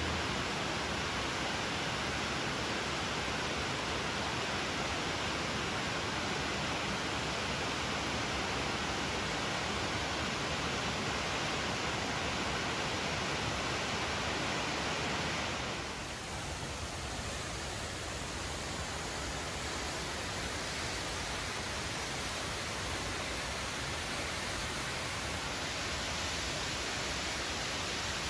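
Waterfall's steady rush of falling water, a little quieter and duller from about sixteen seconds in.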